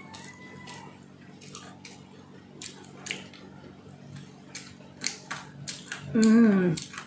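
Close-up mouth sounds of a person chewing food, with many small wet clicks and smacks. About six seconds in comes a short 'mm' hum that falls in pitch.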